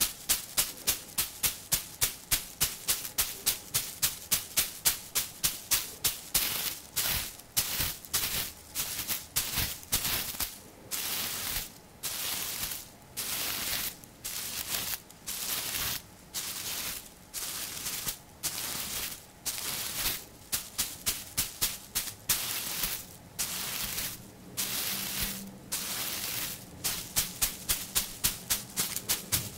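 Dried mugwort bundle tapped and swished close to the microphone, making a dry, crackling rustle. It starts as quick taps, about two or three a second, slows from about six seconds in to longer swishes roughly once a second, and quickens again to rapid taps near the end.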